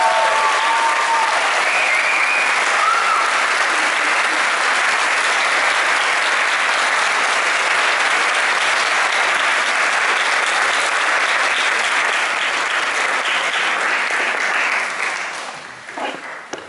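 A large audience applauding steadily, with a few high cheers in the first three seconds. The clapping dies away over the last two seconds.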